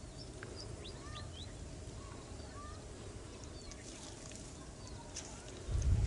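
Small birds chirping with short, rising and falling calls over a steady low rumble of outdoor background noise; a louder low rumble comes in near the end.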